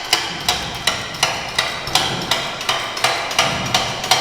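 A steady run of sharp metallic knocks, about three a second, each with a short ring.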